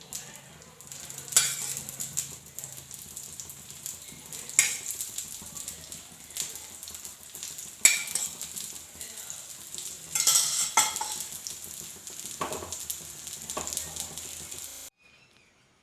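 Pesarattu (moong dal dosa) batter sizzling on a hot griddle, with sharp metal clinks of a utensil against the pan every few seconds. The sizzling cuts off suddenly near the end.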